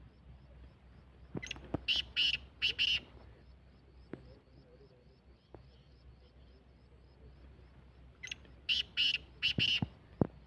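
Black francolin calling: two phrases of about five loud, harsh notes each, the second coming about seven seconds after the first, over a faint steady ticking.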